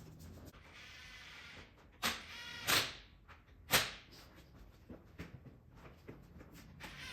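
Three short, loud bursts from a pneumatic impact wrench running wheel nuts on, after a brief hiss, then light clatter.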